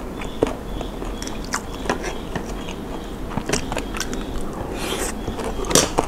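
Close-up eating sounds: a person chewing a mouthful of som tam (spicy Thai papaya salad) with shrimp and noodles, with irregular small clicks and smacks throughout. A sharper click comes shortly before the end.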